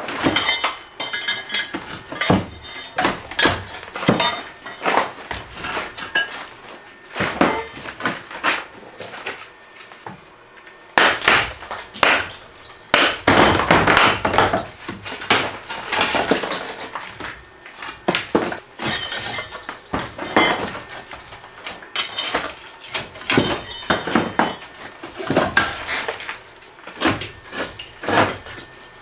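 Concrete cinder blocks of an old chimney base being broken apart with a steel bar: repeated sharp knocks and cracks, with chunks of masonry clinking and falling. There is a dense run of blows about halfway through.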